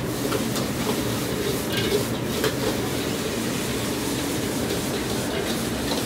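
Restaurant wok burner's steady rush of flame under a steel wok, with a metal wok spatula scraping and clacking against the wok a few times as noodles are stir-fried.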